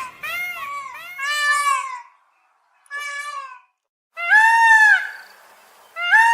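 Peacock calling: a quick run of short calls that each rise and fall in pitch, then a single call about three seconds in, and two longer, louder calls about four and six seconds in.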